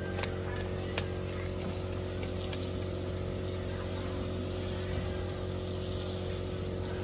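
A steady motor drone with a constant hum. In the first second or so come a few sharp clicks from a kitten's teeth crunching into a raw fish.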